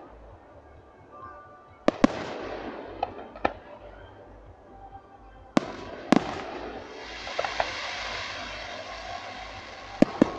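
Aerial firework shells bursting: sharp bangs in close pairs about two, six and ten seconds in, with lighter pops between, and a hiss after the loudest bang near six seconds.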